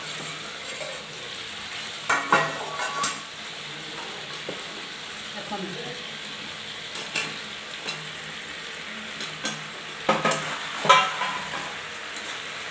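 Chicken curry sizzling steadily in a steel kadai, with clinks and scrapes of metal on metal as fried potatoes are pushed in off a steel plate and stirred with a spatula; the sharpest clatter comes near the end.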